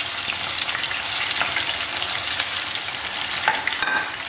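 Seekh kababs deep-frying in hot oil in a pan: a steady, dense sizzle with a constant fine crackle of bubbling oil.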